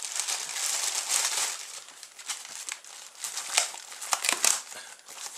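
Plastic mailing bag and foam packing wrap crinkling and rustling as a parcel is opened and its contents are unwrapped. A dense rustle runs for about the first second and a half, then gives way to a string of separate sharp crackles.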